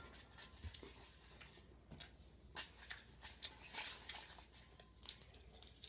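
Faint, scattered crinkles and rustles of an Airheads candy wrapper being handled and opened, in short irregular crackles.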